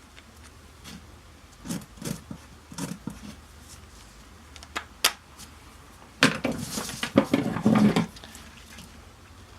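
Hands working with a strip of Velcro tape and scissors: soft rustles and knocks, a sharp click about five seconds in, then a dense rasping stretch of about two seconds.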